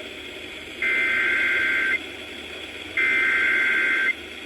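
Emergency Alert System SAME header bursts heard over FM radio: two one-second blasts of shrill two-tone digital data, the code that announces a Severe Thunderstorm Warning, with about a second of radio hiss between them.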